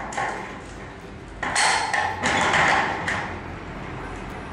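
Hand crimping tool for drywall profiles (profile stapler) squeezed onto galvanised steel profiles, giving a few metallic crunches and clicks as it stakes them together. The loudest comes about a second and a half in.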